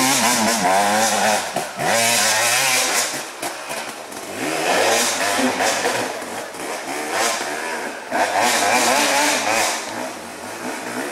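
A dirt bike engine revs hard in repeated bursts, its pitch rising and falling as the rider works the throttle on and off over rough trail.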